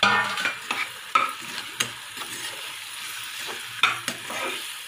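Curry leaves, green chillies and dried red chillies sizzling in hot oil in an aluminium pressure cooker. The sizzle is loudest at the start, and a metal slotted spatula stirs them, clicking and scraping against the pot a few times.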